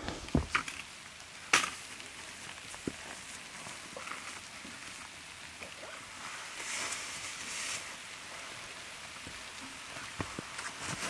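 Light rain falling steadily in a soft hiss, with a few sharp clicks and knocks from gear being handled and a brief louder rustle about seven seconds in.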